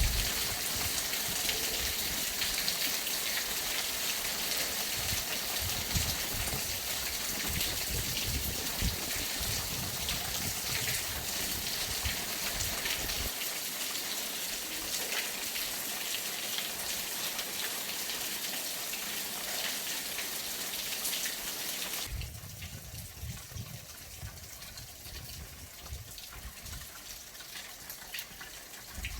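Heavy rain falling steadily, with irregular low rumbles in the first part. About three-quarters of the way through it changes abruptly to quieter rain.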